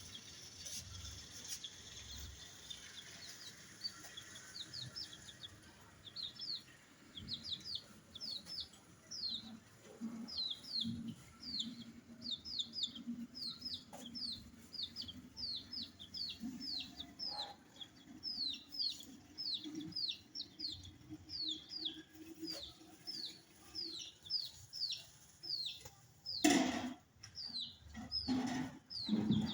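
Chickens: chicks peeping in a steady run of short, falling high peeps, two or three a second, with lower clucking underneath. A few louder, sudden sounds come near the end.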